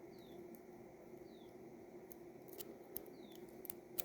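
Faint, scattered light clicks from the small plastic and metal parts of an opened Cherry MX Blue keyboard switch being handled, over a low steady hum.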